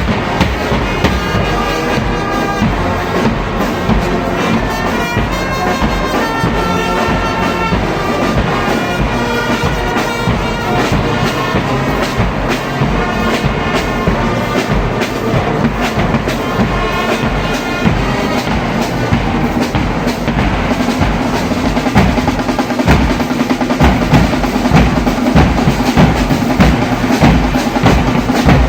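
Church brass band playing, brass horns carrying a melody over a steady drumbeat, growing louder in the last several seconds.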